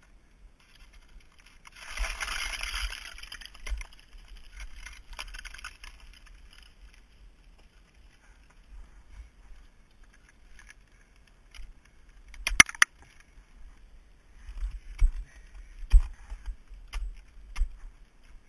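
Ice axe picks and crampons striking and scraping on snow-crusted ice during a climb, with climbing gear clinking. There is a longer scrape about two seconds in, then scattered sharp strikes; the loudest is a quick cluster of strikes about two-thirds of the way through.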